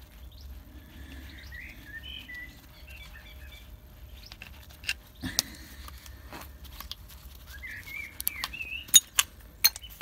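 Birds chirping in the background, and in the second half a handful of sharp clicks, the loudest near the end, from hand tools removing the last sump bolts on a diesel engine.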